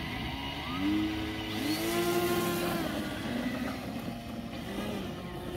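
Small brushless electric motors spinning plastic propellers, a whine that rises in pitch about a second in, holds, falls back near three seconds, then rises and falls briefly again near five seconds as the throttle is worked.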